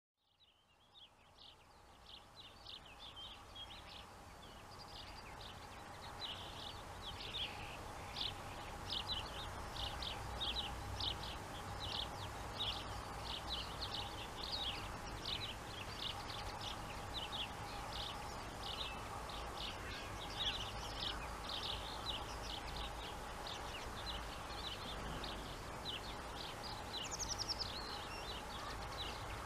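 Songbirds chirping over and over, with a faint low rumble and steady hum from a distant electric freight train approaching; the sound fades in over the first few seconds.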